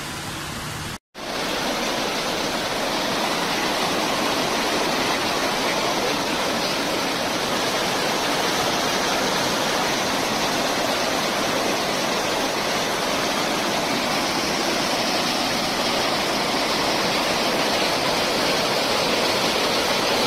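Muddy flash-flood water rushing and churning down a gully in a steady, loud, unbroken rush. The sound cuts out for an instant about a second in.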